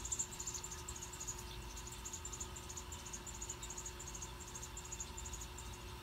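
Nestling birds begging with a rapid run of very high-pitched chirps, the sound of chicks being fed by a parent; it starts abruptly and stops about five seconds in.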